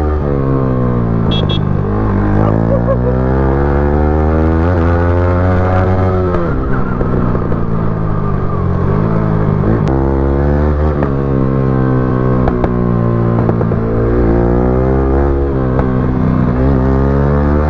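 Yamaha R15 V3's single-cylinder engine through an aftermarket exhaust, revving up and dropping back several times as the bike accelerates through the gears.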